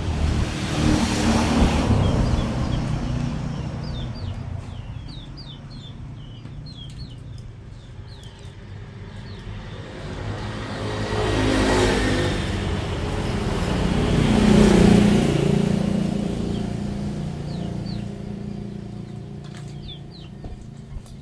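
Motor vehicles passing by, two swells that rise and fade, the first about a second in and the second, longer one about midway through, over the sound of small birds chirping.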